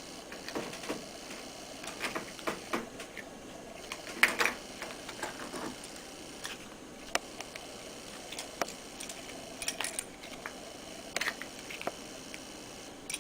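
Scattered small clicks and taps of a quick-release battery terminal connector and its covers being handled, with the sharpest click about four seconds in.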